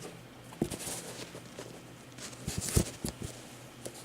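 Handling noises: a single knock about half a second in, then a quick cluster of knocks and rustles about two and a half to three seconds in, the loudest near three seconds, as sneakers and packaging are moved about on a surface.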